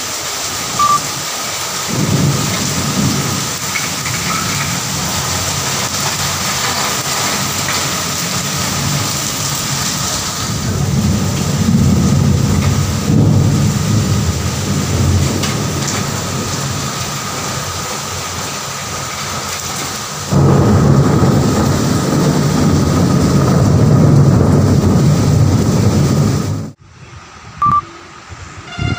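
Heavy rain pouring steadily with thunder rumbling through it: rolling rumbles about two seconds in, again around the middle, and a long loud one from about two-thirds of the way through. It all cuts off abruptly shortly before the end, leaving a much quieter scene.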